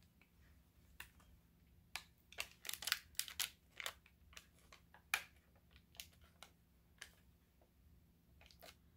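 Plastic snack wrapper and clear plastic tray crinkling and crackling as a packaged cookie is unwrapped by hand: scattered sharp crackles, thickest about three seconds in, with a louder crack about five seconds in.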